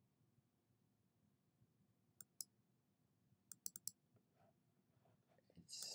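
Faint computer mouse clicks: a double-click about two seconds in, then a quick run of four clicks a second and a half later, with a short noise near the end.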